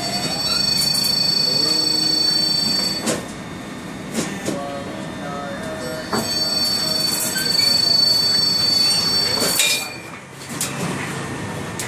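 Air filter frame roll forming machine running, with a high steady squealing whine from the strip being fed through the rolls. The whine comes in two runs of a few seconds each, with sharp clanks between them, the loudest just before the end.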